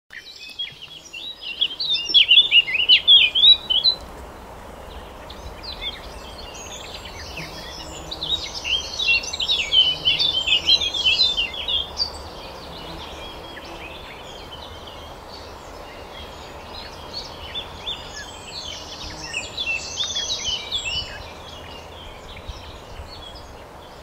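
Birdsong played through electronic bird-calling devices, the lure that trappers use to draw migrating songbirds down into mist nets at night. It comes in three bursts of dense, fast, high twittering over a steady low hum.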